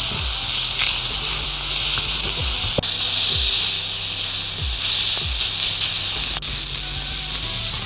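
Meat sizzling on hot stones: a steady loud hiss, under background music with a low thumping beat.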